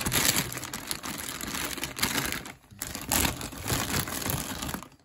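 Thin clear plastic packaging bags crinkling and crackling as they are handled, with a brief lull about two and a half seconds in.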